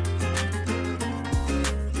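Background music with a steady beat, guitar and a sustained bass line.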